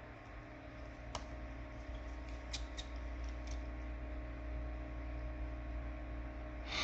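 Small Arctic personal fan running with a steady hum, with a few light clicks of tiny phone screws and tools being set down on the bench.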